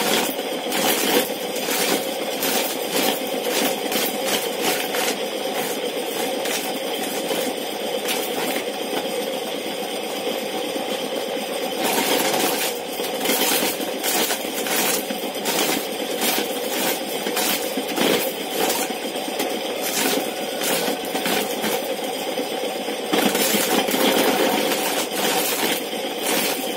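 Old motor-driven disc corn sheller stripping kernels from a hand-held cob. The motor hums steadily under a dense rattle of kernels being knocked off and pattering across the floor.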